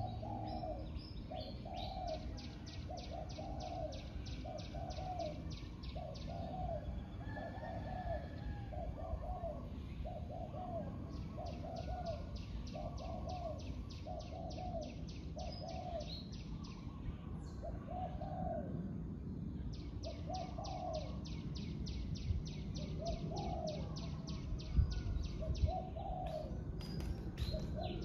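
Spotted doves cooing: a long run of low coo phrases, about one every second at first, then more spaced out after about ten seconds. A fast, high pulsing trill comes and goes three times over the cooing.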